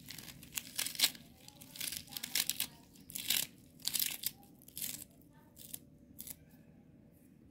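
Small serrated knife slicing through a handful of wet fresh spinach leaves and stems held in the fingers: a run of crisp, crackly cutting strokes, several a second, thinning out to a few faint ones after about five seconds.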